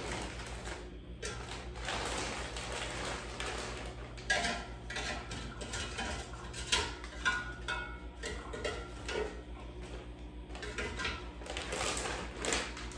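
Plastic bag of frozen chicken wings crinkling as the wings are pulled out and laid in a metal air fryer basket, with scattered hard knocks of the frozen pieces against the basket.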